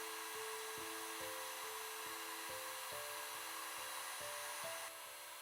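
Soft background music: a simple melody of held notes over a steady beat of about two soft knocks a second, with a faint steady hiss underneath.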